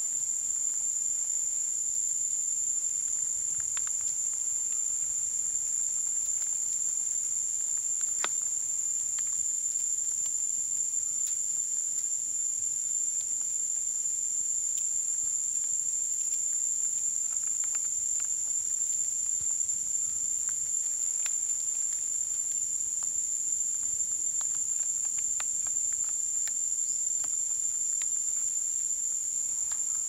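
A steady, high-pitched chorus of insects trilling without a break, with a few faint scattered clicks.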